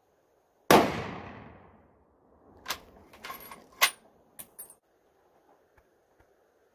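A single shot from a scoped .270 bolt-action hunting rifle, its report dying away over about a second. Then a run of sharp metallic clicks and clacks as the bolt is worked to chamber the next round.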